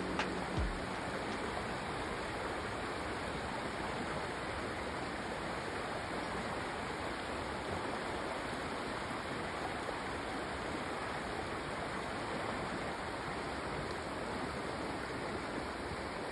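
Shallow rocky creek rippling and rushing over stones, a steady even rush of water, with a soft low knock or two right at the start.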